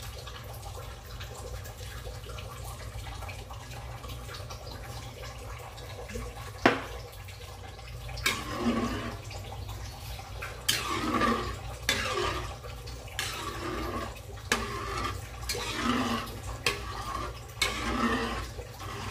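Escabeche sauce being poured into an aluminium wok, then stirred and sloshed with metal tongs in repeated swishes about once a second from about eight seconds in. There is a single sharp click near the seven-second mark.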